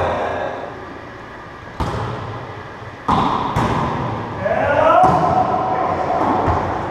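Wallyball rally in an enclosed racquetball court: four sharp hits of the ball, each ringing briefly off the walls, with players' voices calling out in the second half.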